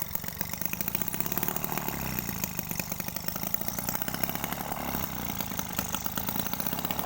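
Small homemade two-stroke engine converted from a refrigerator compressor, running steadily with a rapid, even firing rhythm.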